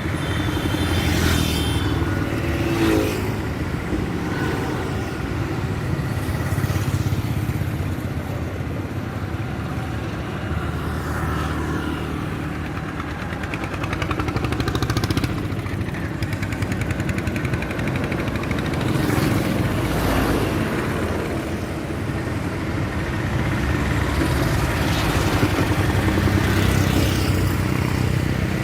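Highway traffic: a continuous rumble of engines and tyres, with motorcycles and other vehicles passing close by one after another.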